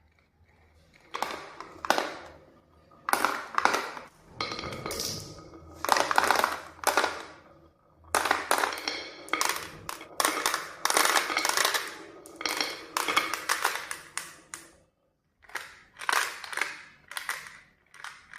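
Marbles clattering and rolling down a wooden marble-run track, in repeated bursts of rapid clicking about a second long each, some with a brief ringing tone.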